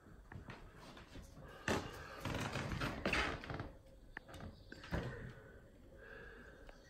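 Kittens running and playing on a wooden parquet floor: scuffling paws with three sharp thumps, about 2, 3 and 5 seconds in.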